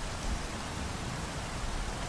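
Steady rainfall, an even hiss of falling rain with a low rumble underneath.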